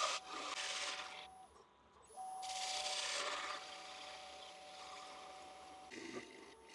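A tool working the base of a walnut bowl to take off the tenon: a rough, hissing abrasion with a steady hum through it. It breaks off briefly about a second and a half in, starts again, and fades away over the last few seconds.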